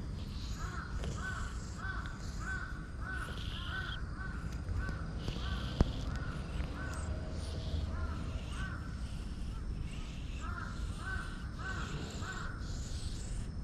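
Crows cawing in quick runs of short calls, about three a second, with pauses between runs. A single sharp click about six seconds in, over a steady low rumble.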